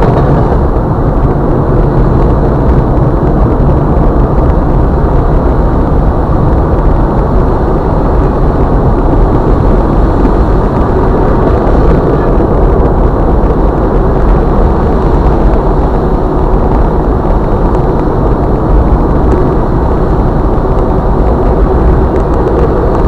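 Steady, muffled drive noise inside a moving vehicle's cabin: the engine and tyres running on the road.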